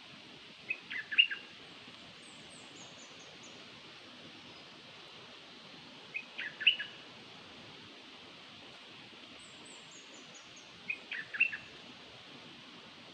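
A songbird (Thai name nok dok taeng) repeating a short phrase of four or five quick notes three times, about every five seconds, each phrase ending on its loudest note. Between phrases come two fainter runs of very high, descending notes, over a steady hiss. It is a decoy call of the kind played to lure this bird.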